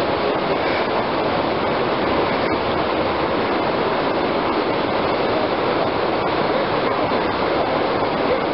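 Steady rushing of whitewater pouring through a river rapid.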